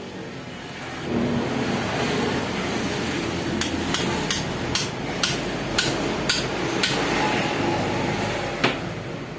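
A hammer tapping on metal: about nine sharp strikes, roughly two a second, then a single strike near the end, over a steady background noise that starts about a second in.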